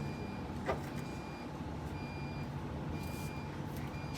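A reversing alarm beeping faintly, one short high beep about once a second, over steady background hum, with a single click about a second in.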